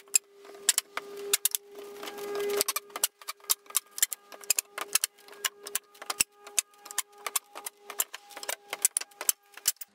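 Flat pry bar prying an old wooden cross piece off a thin wood ceiling panel a little at a time. It makes a rapid, irregular run of clicks and creaks as the nails work out of the wood, over a faint steady tone.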